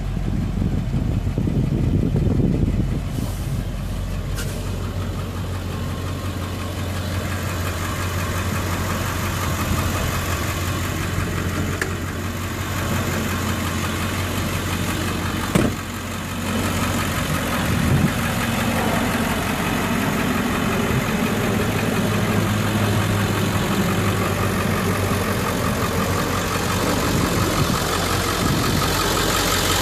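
A 2002 Ford Excursion's 7.3-litre Power Stroke turbo-diesel V8 idling steadily, heard first from inside the cab and then from outside by the open door and front wheel. There is a brief knock about halfway through.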